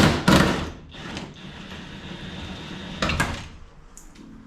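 Short, loud bursts of a hand-held power tool working on the car's rear suspension bolts: two close together at the start, another about a second in and one about three seconds in, with a faint steady high whine between them.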